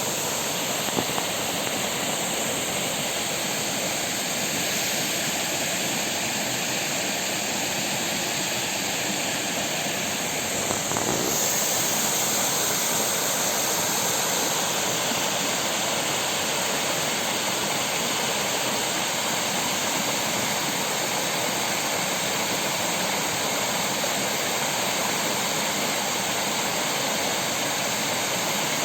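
Waterfall: a steady rush of falling water, a little louder from about eleven seconds in.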